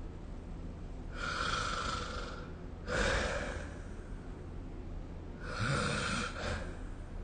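A sleeping person snoring: three noisy breaths, about a second in, at about three seconds, and a longer one near the end that carries a brief low rattle.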